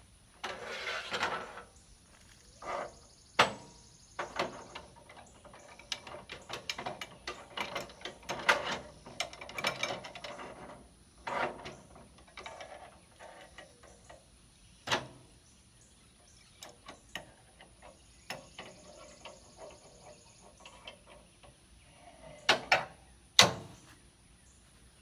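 Steel log dogs (clamps) on a portable sawmill being slid into place and locked down against a log with an adjustable wrench: irregular clanks, scrapes and knocks of metal, with a few sharp knocks.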